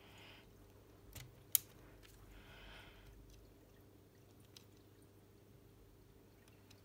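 Small plastic clicks of LEGO Technic parts being handled and pulled apart, with one sharp snap about one and a half seconds in and a couple of softer clicks, over a faint steady room hum.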